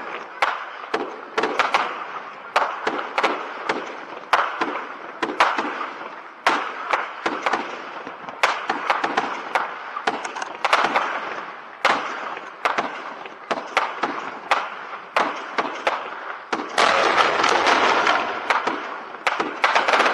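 Aerial fireworks bursting in quick succession: many sharp bangs, often several a second, with crackling between them. The noise thickens into a dense, continuous stretch for about two seconds near the end.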